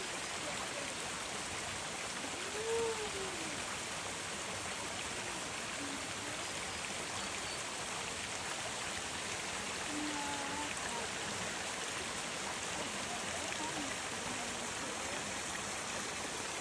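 Steady rush of a mountain waterfall and its stream.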